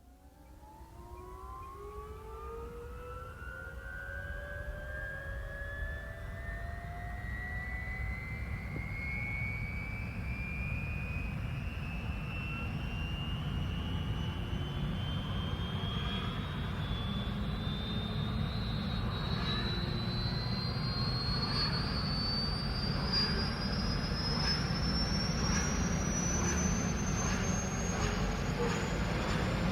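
Helicopter turbine engine spooling up from a start: a whine rises steadily in pitch throughout, while a low rumble grows louder beneath it.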